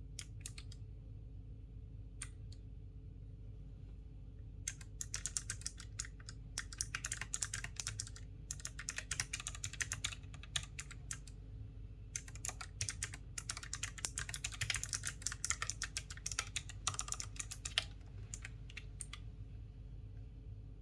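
Typing on a Keychron K3 V2 low-profile mechanical keyboard with clicky Gateron Blue switches: a few scattered keystrokes, then fast runs of sharp key clicks from about five seconds in, with a short pause in the middle, trailing off to single presses near the end.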